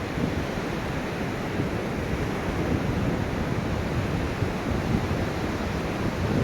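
Ocean surf rushing steadily: a continuous wash of waves, deepest in the low range, with no single crash standing out.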